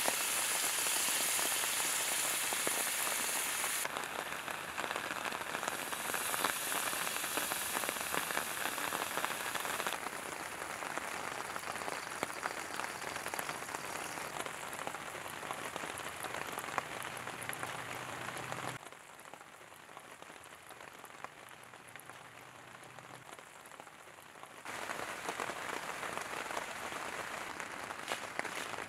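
Tomato sauce sizzling and bubbling in a hot cast-iron skillet on a camp stove: a dense crackling hiss, loudest just after the sauce hits the hot pan, then settling. It is much quieter for a few seconds about two-thirds of the way in, then picks up again.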